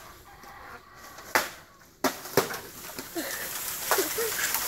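Sharp chopping blows into a bamboo cane, the loudest about a second and a half in and another about a second later, then a sustained rustling of leaves and stalks as the cut bamboo comes down through the clump.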